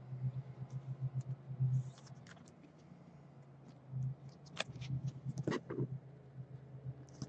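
Faint clicks and light rustling from trading cards being handled, with a few sharper clicks about two-thirds of the way in, over a low wavering hum.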